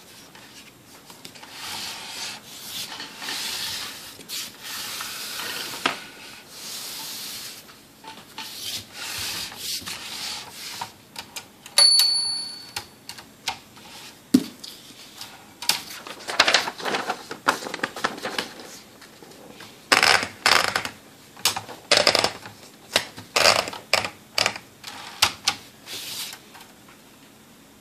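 1969 Olympia SF portable typewriter being handled and typed on: rubbing and sliding for the first several seconds, one short ringing ping about twelve seconds in, then runs of sharp key and typebar clacks through the second half.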